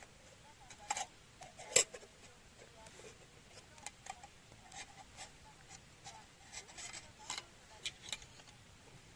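Small wood fire crackling in a BushBox LF folding stove: irregular sharp pops and ticks, the loudest about a second and two seconds in.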